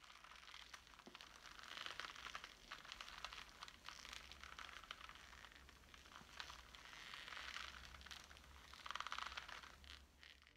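Foley creaking built from two layered tracks: an old rope being twisted and a leather purse being squeezed. It makes a rustling creak of many fine clicks that swells and eases about four times.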